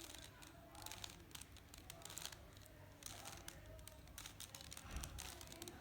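Rubik's Cube faces being turned by hand: faint, irregular plastic clicking and rattling as a sequence of moves is carried out.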